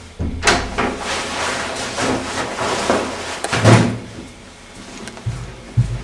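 A door being handled: a sharp click about half a second in, a few seconds of rattling and rustling, then a heavier bang a little past the middle.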